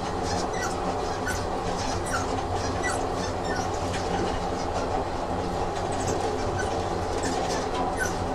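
Train sound effect of a railway carriage running: a steady rumble with scattered light clicks and short squeaks from the wheels on the track.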